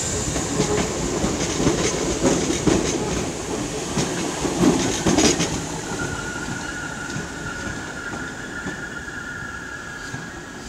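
ScotRail electric multiple units running over station pointwork, wheels clacking in a quick uneven rhythm. From about six seconds, a steady high wheel squeal sets in as the departing Class 314 rounds the curve, and the sound fades as it pulls away.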